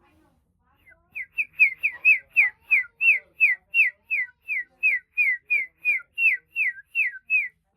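A person whistling a fast run of short, high notes that each slide downward, about three a second, starting about a second in.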